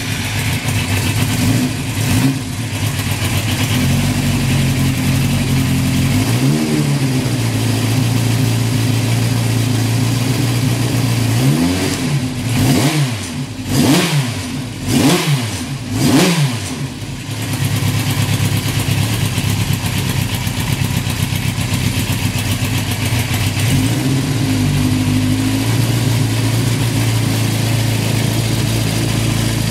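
Kawasaki Z1100R's air-cooled inline-four engine idling, still warm from a ride. It is given a quick throttle blip about two seconds in and a rev near seven seconds, then a run of sharp throttle blips around the middle, and it settles back to a steady idle with one more short rev near the end.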